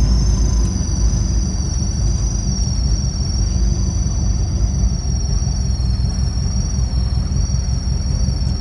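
Motor vehicle running or driving, a steady low rumble, with a steady high-pitched double whine over it.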